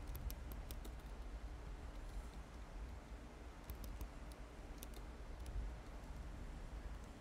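Computer keyboard keys clicking in a few short runs of keystrokes over a low steady rumble: typing while editing code.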